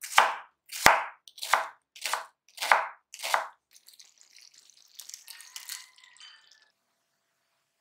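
Six even knife chops on a cutting board, a little under two a second, followed by about three seconds of fainter, hissing kitchen noise that stops shortly before the end.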